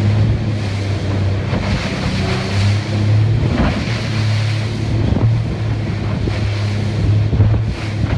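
A 26 ft center-console powerboat running at speed through swells: a steady low engine drone under the wash of water along the hull, with wind buffeting the microphone.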